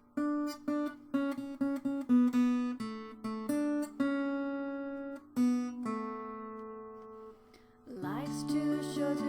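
Acoustic guitar picking an intro of single notes, each ringing out after a sharp attack. After a short lull, a fuller, sustained passage comes in near the end.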